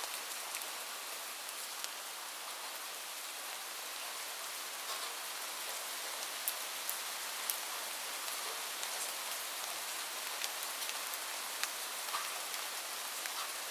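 Light rain falling steadily as an even hiss, with scattered individual drops ticking on a surface.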